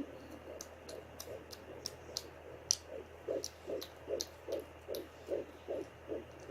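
Fetal heartbeat through a handheld 3 MHz fetal Doppler at 15 weeks of pregnancy: a fast, even pulse of about two and a half beats a second, the rate of a baby's heart rather than the mother's. It is faint at first and comes through clearer from about three seconds in, over the Doppler's steady hiss.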